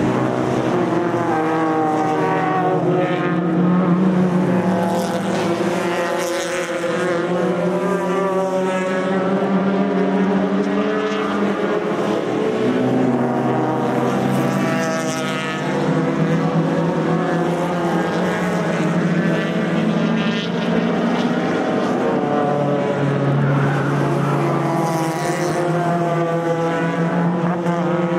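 Several racing cars with unsilenced exhausts running hard, one engine overlapping the next with no break, the pitch of each rising and falling as they pass.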